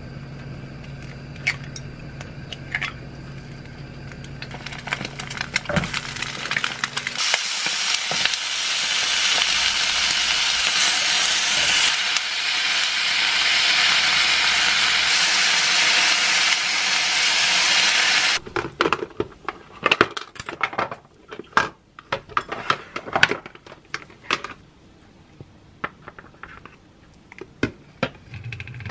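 Eggs and pork belly frying in oil in a pan, a loud steady sizzle that begins about seven seconds in and cuts off abruptly after about eleven seconds. Before it there is a steady low hum; after it come light clicks and taps of wooden chopsticks and a plastic lunchbox as rice is packed.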